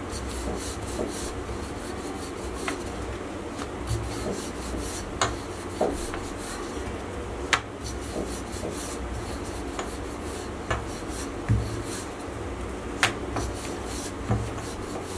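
A wooden rolling pin rolling out a flour-dusted, potato-stuffed paratha on a granite countertop: a steady rubbing and scraping as the pin goes back and forth, with occasional light clicks.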